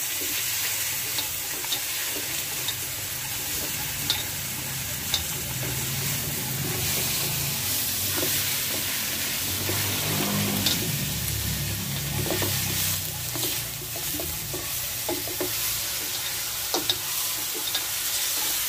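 Chunks of pork sizzling as they are sautéed and browned in a wok, with a steady frying hiss. A ladle stirs them, scraping and clicking against the pan now and then.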